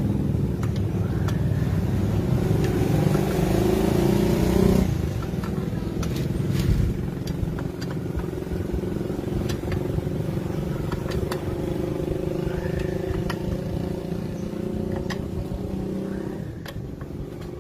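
A motorcycle engine running steadily, louder and slightly higher for a few seconds before dropping back about five seconds in. Scattered light metal clicks from hand tools on the engine case.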